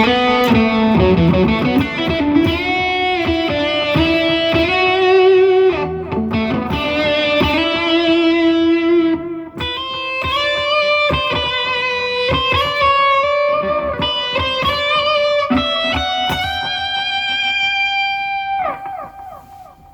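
Electric guitar playing a lead solo through a distortion preset on a computer amp simulator, heard through a full-range amplifier. It plays sustained notes with string bends, breaks off briefly about halfway, and lets the last held note ring out near the end.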